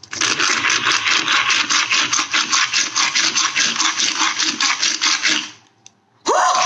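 Chef'n Garlic Zoom roller garlic chopper being rolled quickly by hand, its wheels turning the internal blades through garlic cloves with a rapid, even clicking rattle. The rattle stops about five and a half seconds in.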